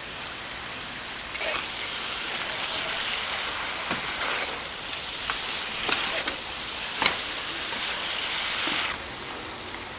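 Pork offal sizzling on a large iron griddle: a steady hiss with scattered pops and crackles, louder from about a second and a half in until near the end.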